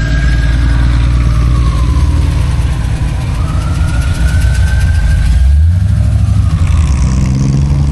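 Loud car engine running and revving as the car drives off, with a higher whine that falls and then rises in pitch; the engine note changes about five and a half seconds in.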